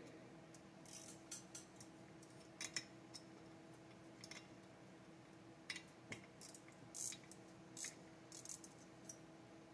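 Faint, scattered clicks and light metallic clinks of hand tools and small bolts being handled, over a faint steady hum.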